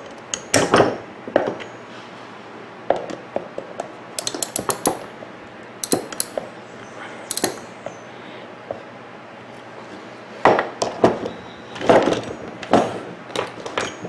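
Scattered metal clinks and clicks of pliers and tools on a blender motor's shaft as the cooling-fan nut is tightened. Near the end there are louder knocks as the plastic motor housing is handled.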